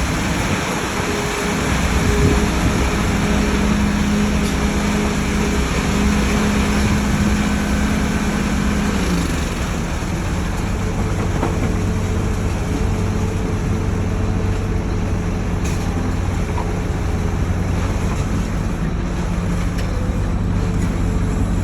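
Heavy diesel machinery running steadily, with one engine tone falling away about nine seconds in while a low hum continues.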